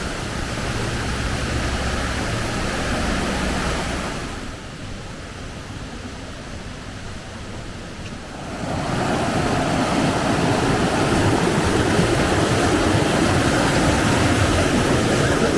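Rushing water of the Galovački buk waterfall, a steady noise of falling water; it turns quieter for a few seconds midway, then comes back louder.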